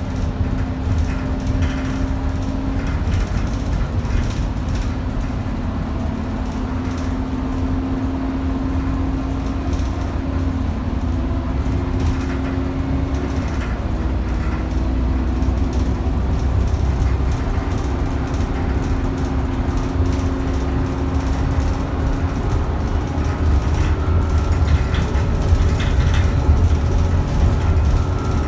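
Onboard an ADL Enviro 400 double-decker bus under way: the engine and ZF automatic gearbox running under a steady low rumble of road noise, their tones shifting in pitch as the bus changes speed. A higher whine joins in near the end.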